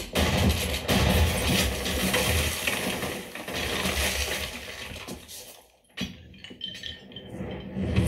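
Film gunfight soundtrack played through a Klipsch RP-450C center-channel speaker and heard in the room: heavy gunfire and shattering, crumbling stone debris. A little past halfway it drops almost to a hush, then a sharp hit and scattered light clinks follow.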